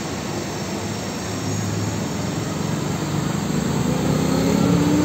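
Mercedes-Benz Axor tanker truck's diesel engine running as it drives slowly past through a turn, with tyre and road noise. In the second half an engine rises steadily in pitch and grows louder as it accelerates.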